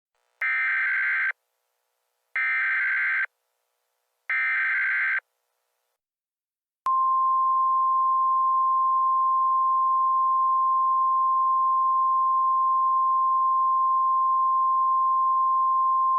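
Emergency Alert System signal: three short bursts of screeching digital header tones about two seconds apart, then a single steady attention tone held for about ten seconds that cuts off suddenly.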